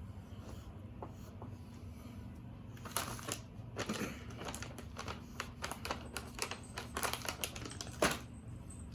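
Plastic snack packaging crinkling and crackling as it is handled: a quick string of sharp crackles and clicks starting about three seconds in, ending with one louder crackle near the end.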